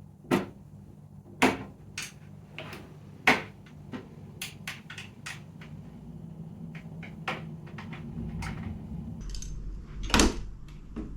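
Sharp clicks and knocks of metal parts and screws being handled against a 3D printer's frame while bolts are fitted into it, the loudest in the first few seconds, with a low rumble of handling from about eight seconds in.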